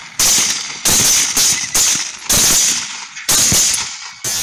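Rifle shots fired in quick succession, seven sharp cracks in about four seconds at uneven spacing, each with a ringing echo. The last shot rings on longest.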